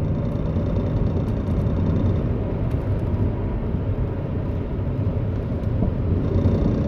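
2002 Mercury Cougar (2.5L V6) driving, heard from inside the car: a steady low drone with faint steady tones above it. It is the unexplained noise that comes only when the car rolls under its own weight, which the owner thinks may be in the wheels or a motor or transmission mount.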